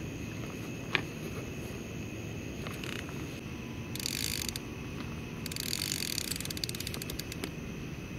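Fishing reel clicking and ratcheting as it is handled: a sharp single click about a second in, then short runs of rapid clicks, the last a fast train of ticks, over a steady low rumble of background noise.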